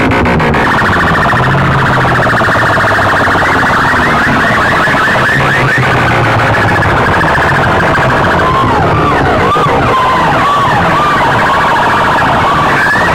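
A massed stack of horn loudspeakers from a DJ sound rig blaring siren-like electronic sweeps at very high volume, the pitch rising and falling over and over above a low steady drone. The swoops come quicker from the middle of the stretch on.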